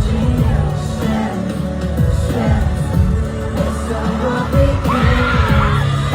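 Pop music with singing over a heavy bass.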